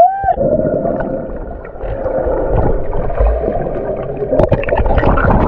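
Water gurgling and sloshing heard with the microphone underwater while snorkeling, with many small splashes and knocks throughout and a short muffled squeal that rises and falls right at the start.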